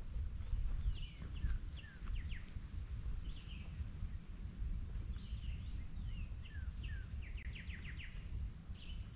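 Several wild birds singing and calling with short chirps and whistled notes, including a quick run of descending notes near the end, over a steady low rumble.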